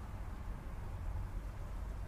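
Wind buffeting the microphone: a steady, uneven low rumble with no other distinct sound.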